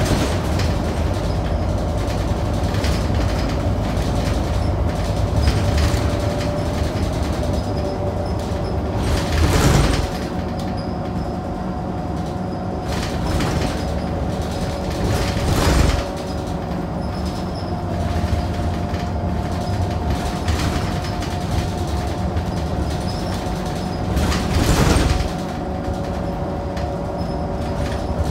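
Scania K94UB city bus heard on board while under way: its Scania DC9 nine-litre six-cylinder diesel and driveline running with a steady low rumble and a steady whine. Three short louder rushes of noise come about ten, sixteen and twenty-five seconds in, each cutting off abruptly.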